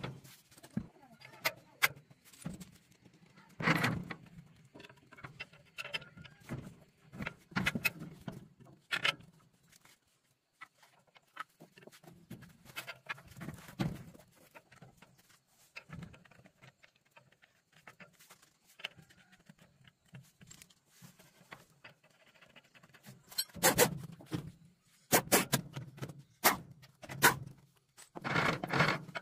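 Scattered knocks and clinks of metal tools and a rubber-tyred thresher wheel being handled during a repair, quieter in the middle, with a run of louder short bursts in the last several seconds.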